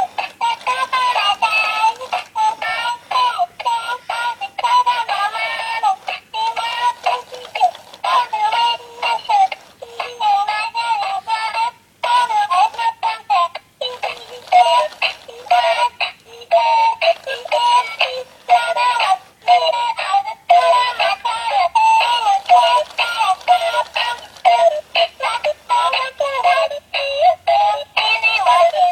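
Battery-powered singing and dancing plush toy dog playing a song in a synthesized singing voice, thin with no bass, the melody interrupted by frequent brief dropouts.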